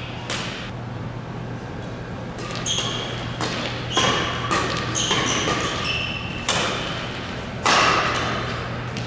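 Badminton rackets striking a shuttlecock in a rapid doubles rally, a string of sharp smacks, mixed with short high squeaks of court shoes on the floor, all ringing in a large hall.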